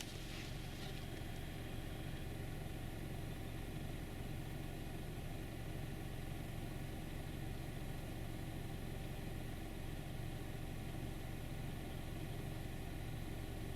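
A Honda 2.0 litre petrol engine idling steadily, heard from inside the car's cabin.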